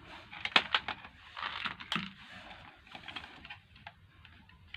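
Irregular clicks, taps and light scraping of hard plastic parts being handled, from a blender jug being taken apart after its screws are out, with the sharpest clicks about half a second in and at two seconds.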